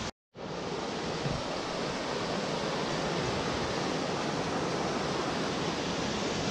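Mountain stream rushing over rocks: a steady sound of white water, broken by a brief moment of silence just after the start.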